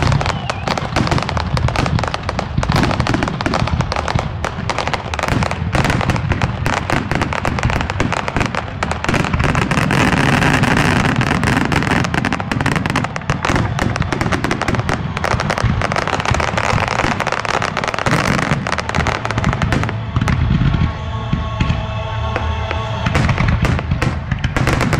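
Aerial fireworks display: a dense, continuous barrage of bangs and crackles as shells burst overhead. A steady pitched sound joins in about twenty seconds in.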